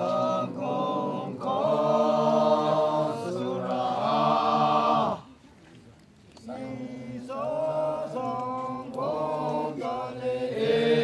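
Makury Naga men's choir singing a cappella in three-part harmony, in long held chanted phrases. The singing stops about five seconds in, and after a pause of a little over a second a new phrase begins.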